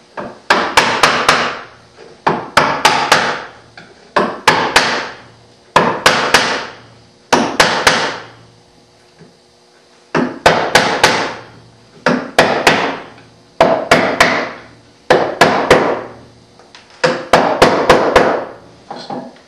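Bench chisel being struck into a hardwood board in quick bursts of three to five sharp blows, chopping out the waste of a half-blind dovetail socket. About a dozen bursts come every second or two, with a short pause near the middle.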